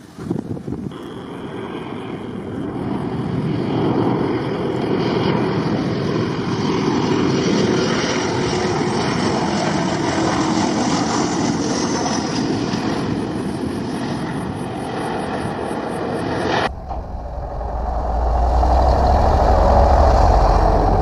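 Jet airliner's engines passing low overhead: a loud roar that swells, with a high engine whine falling in pitch as it goes by, then slowly fades. Near the end the sound cuts abruptly to a deep jet rumble with a rushing haze that swells again.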